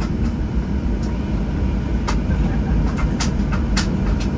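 Cabin noise of a Boeing 737 on the ground after landing: a steady low rumble, with a few sharp clicks in the second half.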